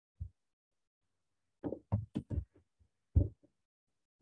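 A few dull computer keyboard and mouse taps: one shortly after the start, a quick run of four or five around the middle, and a louder one near the end.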